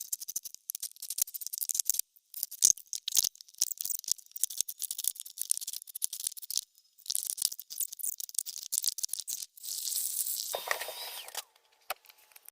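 Quick, irregular clicking and rattling of tools and hardware being worked, with a brief steady whir about ten seconds in.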